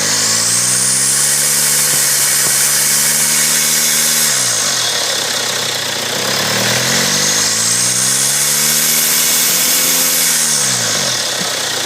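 Turbocharged engine revved twice with the air filter off. Each time the revs rise a loud turbocharger whistle rises with them, and it falls away as the revs drop. The whistle comes from a worn turbo whose shaft has heavy end-to-end play and which has been pushing oil into the intake.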